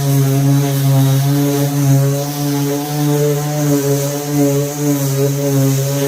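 Electric power sander running steadily with a strong hum and a hiss of abrasive, sanding down a puttied door-frame repair with coarse 80-grit paper.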